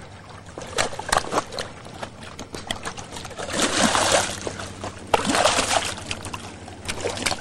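A hooked fish splashing and thrashing at the surface in shallow water as it is pulled in to the shore, with a few sharp knocks early on and two longer bursts of splashing about three and a half and five seconds in.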